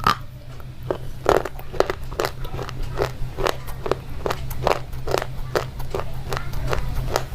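Slate pencil being chewed: a steady run of crisp crunches, about two to three a second.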